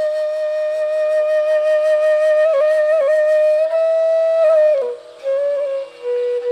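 Background music: a solo flute holding long, slow notes with small ornamental turns, and a short break about two-thirds of the way through.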